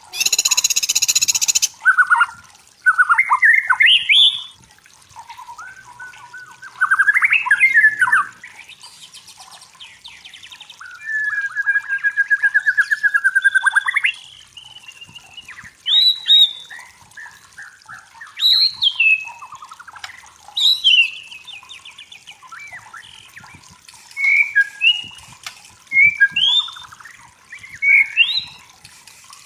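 Songbird, taken for a white-rumped shama, singing a varied song. It opens with a harsh rasping note, then moves into rising and falling whistled phrases, a rattling trill near the middle, and quick sharp notes toward the end.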